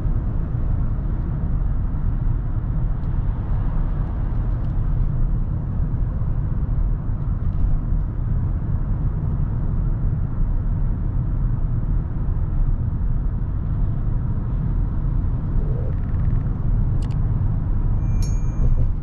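Kia Sorento with the 2.2 CRDi diesel engine driving: a steady low rumble of engine and road noise. A couple of sharp clicks and a short high tone come near the end.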